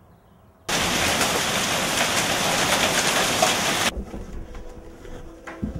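Hailstorm pelting down: a dense, even hiss of falling hail and rain that starts abruptly about a second in and cuts off sharply about four seconds in. A faint steady hum follows.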